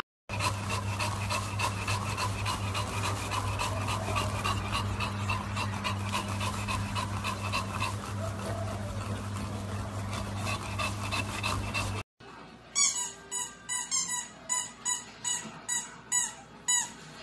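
English bulldogs panting quickly and heavily, with a steady low hum underneath. After a cut about twelve seconds in, a run of short, high squeaky notes comes about twice a second.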